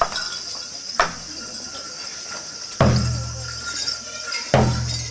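Shishi odori deer-dance drums struck in a slow beat: three heavy strikes about a second and a half to two seconds apart, each booming and ringing on low.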